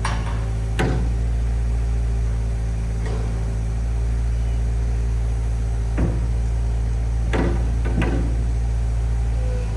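Caterpillar 216B3 skid steer loader's diesel engine idling steadily, with several short sharp clicks over it.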